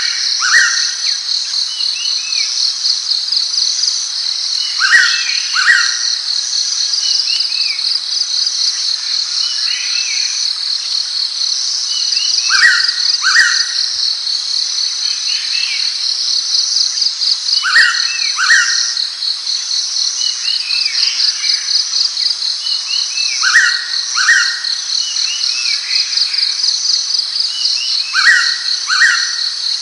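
Blue-winged pitta giving its clear two-note whistle, repeated about every five seconds, over a steady, fast-pulsing chorus of crickets or similar insects.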